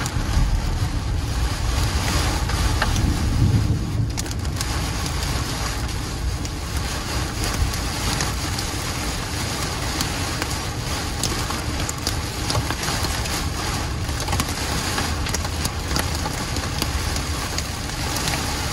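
Torrential rain pelting a moving car's windshield and body, heard from inside the car: a steady rush of rain, tyre spray and wind, with many sharp drop impacts. A deeper rumble stands out in the first few seconds.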